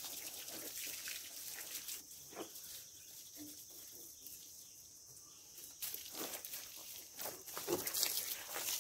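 Water from a garden hose spraying and spattering onto a tractor's wheels and bodywork as it is rinsed down. The spray goes quieter from about two seconds in and picks up again about six seconds in.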